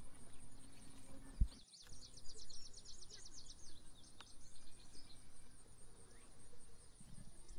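Outdoor ambience of birds chirping over a steady high insect buzz, with a fast high trill about two seconds in. A single low thump comes just before the trill.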